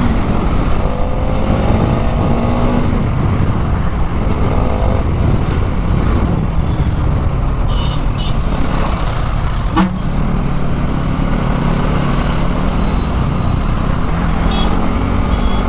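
Bajaj Pulsar NS200's single-cylinder engine revving hard at speed, with wind rushing over the helmet microphone. The revs climb through the first couple of seconds and again near the end. There is one sharp tick about ten seconds in.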